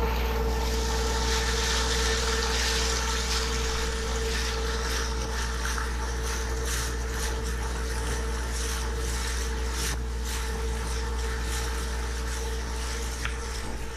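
Boat engine running at a steady drone, with a hiss of water and wind over it.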